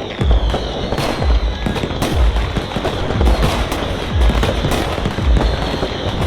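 Fireworks bursting and crackling over music with a steady bass beat, about two beats a second.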